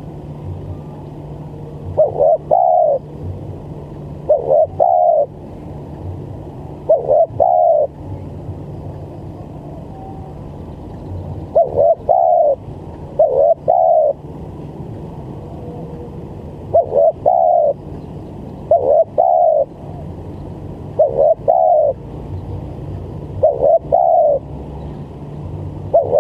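Spotted dove (tekukur) cooing in short paired notes about half a second apart, the phrases repeating every two to three seconds with one longer pause near the middle. It is the stuttering 'gagap' coo used as a lure call to draw in wild doves.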